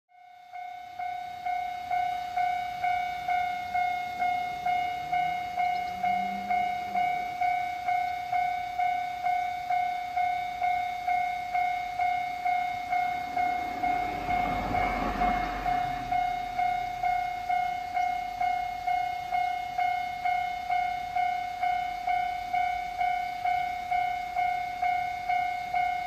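High-pitched electronic level-crossing alarm bell of a Nagano Electric Railway crossing, sounding a steady tone pulsed about twice a second. It fades in during the first second or two, and a broad swell of noise rises and fades about halfway through.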